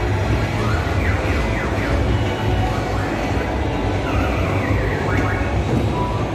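Amusement arcade noise: electronic game machines and kiddie rides giving off siren-like sweeping tones, twice, over a steady low rumble from the hall.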